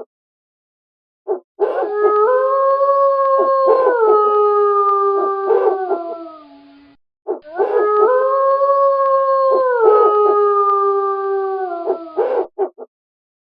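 Wolf howling: two long howls of about five seconds each, each holding its pitch, stepping down partway through and then sliding lower, with a few short calls just before and after.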